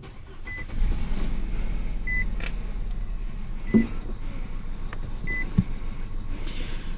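Nissan Rogue engine starting about a second in and idling, with a cylinder 3 misfire logged, while a dashboard warning chime beeps about every one and a half seconds. The engine is being run to see whether the misfire moves with the swapped coil packs.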